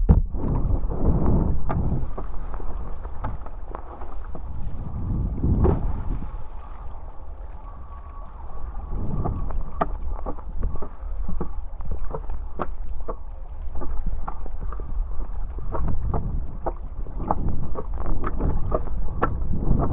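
Wind rumbling and buffeting on the microphone while foiling downwind over open water, with many short, sharp water splashes and slaps, more frequent in the second half.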